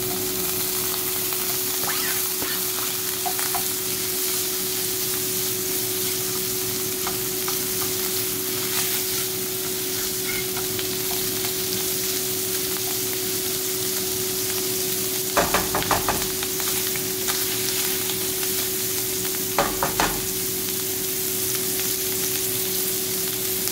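Diced salami sizzling as it fries in a little oil in a nonstick frying pan, stirred and pushed around with a spatula. Twice in the second half the spatula clatters more loudly against the pan, over a steady low hum.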